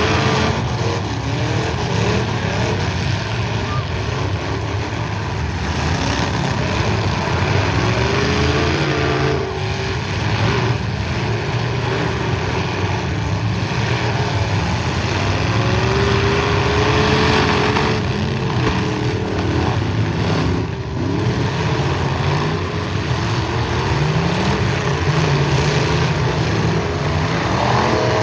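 Several pickup truck engines revving hard and easing off, their pitches rising and falling over one another as the trucks ram each other in a demolition derby, with a few brief crashes of collisions.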